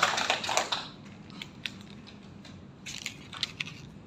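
Small group applauding, the clapping dying out within the first second, followed by a few scattered taps.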